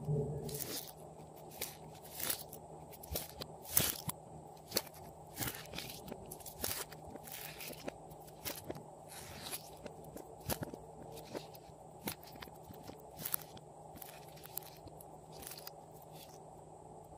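Soft slime being squeezed, kneaded and pressed by hand, giving irregular sticky clicks and pops, with several longer wet crackles among them.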